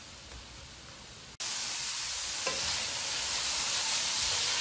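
Ground beef and onions frying in an electric skillet: a steady sizzle, with a spatula stirring and scraping through the meat. About a second and a half in the sizzle jumps suddenly louder.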